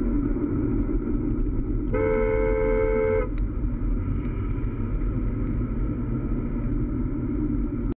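A car horn sounds once, a two-tone honk held for about a second, over the steady road and engine rumble of a car driving.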